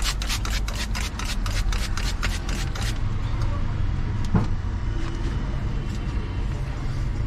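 Hand trigger spray bottle squirting water in quick pumps, about four a second, wetting car window glass for tint-film application; the pumping stops about three seconds in. A steady low rumble runs underneath, with a single knock about four seconds in.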